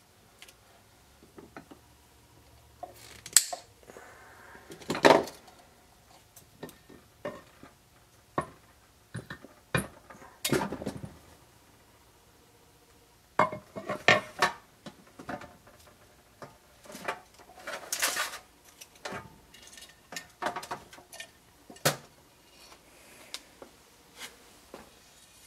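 Metal parts clinking and knocking against a stainless steel pan and the X-ray head's metal housing as the oil-covered transformer is worked out and the housing lifted. The knocks are irregular, a handful of them sharp and loud among quieter clicks.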